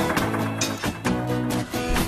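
Instrumental cartoon background music, a short cue with held notes and repeated note attacks, bridging a scene change.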